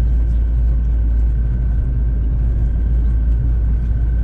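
Steady low road-and-engine rumble inside a moving car's cabin, with a faint steady high tone above it.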